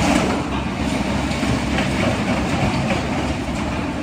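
Steady mechanical rumble with a light rattling clatter, like the electric motors and gears of a toy-scale remote-control vehicle running.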